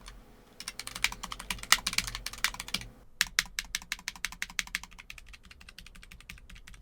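Typing on a Keychron K3 low-profile mechanical keyboard with brown (tactile) switches: a run of keystroke clicks, becoming quicker and lighter about three seconds in.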